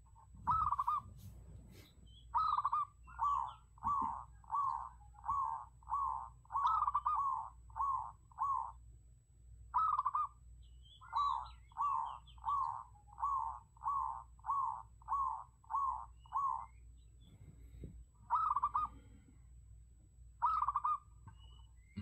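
Zebra dove cooing: short, rolling coos repeated about one and a half times a second in two long runs, with single coos before, between and after them.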